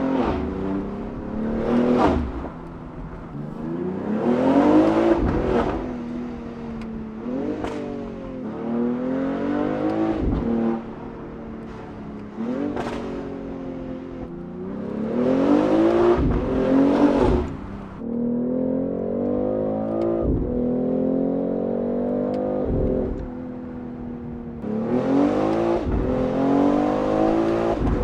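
BMW X3 M's S58 twin-turbo inline-six running through a Valvetronic Designs valved exhaust with OEM downpipes, accelerating hard through the gears again and again: the engine note climbs with each pull and falls at every upshift, and a sharp crack comes with many of the shifts.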